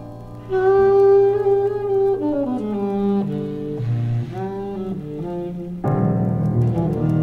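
Jazz tenor saxophone holds a note, then plays a falling phrase over double bass; the fuller quintet with piano comes in louder about six seconds in.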